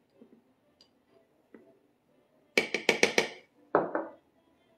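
Measuring spoon tapping while nutmeg is measured out: a quick run of about five sharp taps just past halfway, then one more a moment later.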